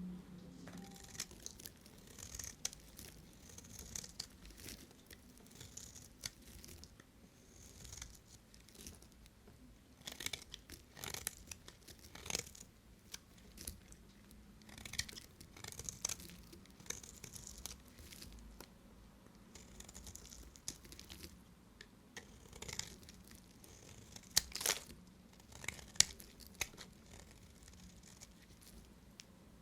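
Blade cutting through dry bar soap: repeated short scraping strokes, with crisp cracks as pieces break off, the sharpest in two clusters around the middle and near the end.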